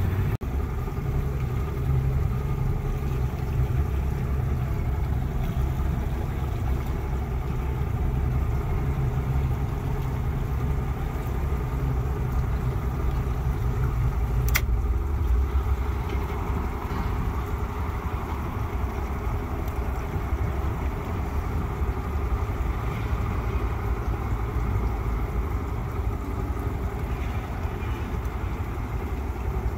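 Small fishing boat's engine running steadily. A sharp click comes about halfway, after which the engine note sits lower.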